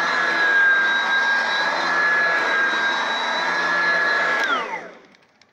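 Oreck XL2 upright vacuum cleaner running with a steady high whine, then switched off about four and a half seconds in, its motor falling in pitch as it spins down.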